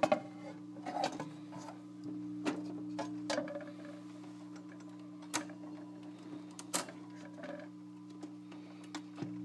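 Automatic record changer of a 1953 RCA 3-HES-5 record player cycling between records: a series of irregular mechanical clicks and clunks over a steady low hum.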